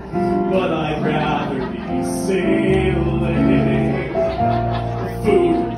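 A man singing a show tune with piano accompaniment, holding long notes.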